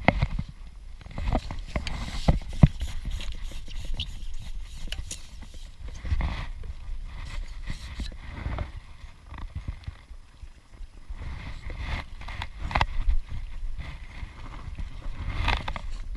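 Irregular knocks, clicks and scrapes of close handling, with a low rumble underneath.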